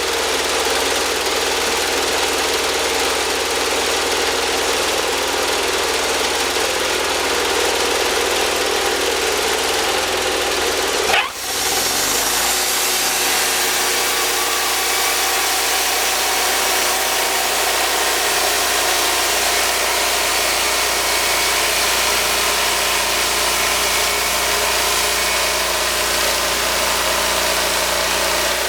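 Woodmizer portable band sawmill running steadily under engine power. About eleven seconds in a sharp click and a brief dip break the sound, after which it settles to a slightly different steady note.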